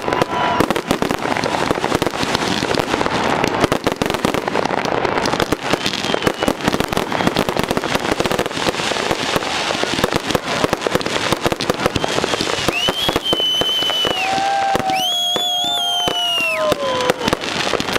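Fireworks display: a dense, continuous barrage of bangs and crackling bursts. High whistling tones run through the last few seconds, some falling in pitch.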